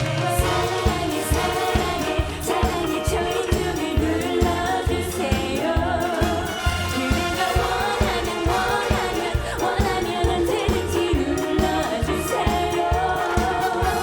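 Pop song with a steady dance beat and women singing.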